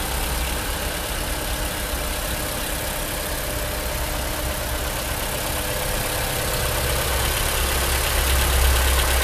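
Toyota Camry's Dual VVT-i engine idling steadily, heard with the hood open.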